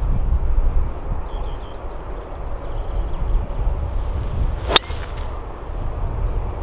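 A golf driver strikes a ball off the tee with one sharp crack about three-quarters of the way through, under a steady low rumble.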